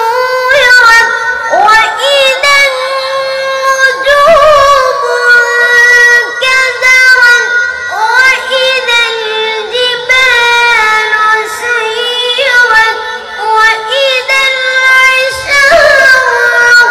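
A boy's high voice reciting the Quran in the melodic, drawn-out tajweed style, holding long ornamented notes with short breaks for breath.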